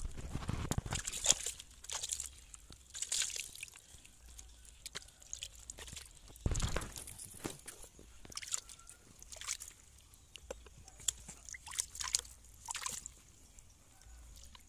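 Hands working wet pieces of raw monitor lizard meat, giving irregular short squelches and rustles against a plastic basket and leaves, with a dull thump about six and a half seconds in.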